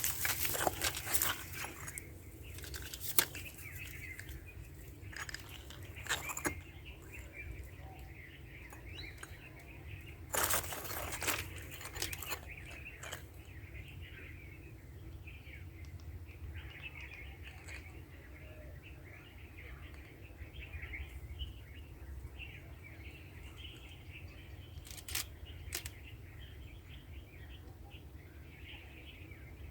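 Rustling and crunching in dry undergrowth, with several loud bursts in the first half, over faint background bird chirping and a steady low wind rumble.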